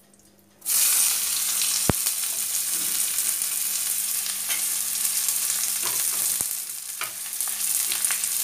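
Chopped onions hitting hot mustard oil in a steel kadhai: the sizzle starts suddenly about half a second in and runs on steadily as they are stirred, with a couple of sharp knocks against the pan.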